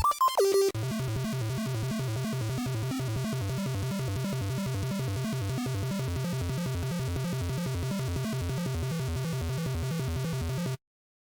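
Background electronic music: a short melodic phrase, then a steady repeating pattern with a pulsing bass that cuts off abruptly near the end.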